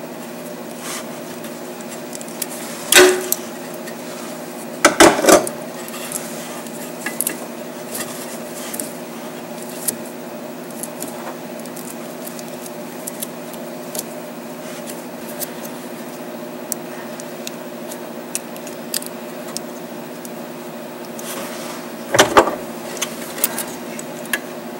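Hand wire cutters and a wire stripper clicking and snapping shut on small automotive wires, with loud sharp snaps about three seconds in, twice around five seconds in, and again near the end, and lighter ticks of handling in between, over a steady background hum.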